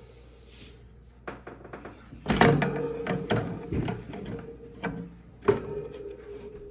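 Black metal wire cage top being set down onto a glass ten-gallon aquarium: a series of clanks and rattles, the loudest about two seconds in, with the wire frame ringing on after the bigger knocks.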